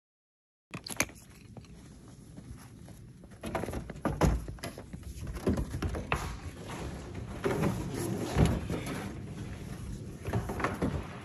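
After a moment of silence, irregular knocks, clicks and rubbing as a hose is handled and fed into the top of a plastic IBC water tote on a pickup bed. The knocks get louder and more frequent partway through.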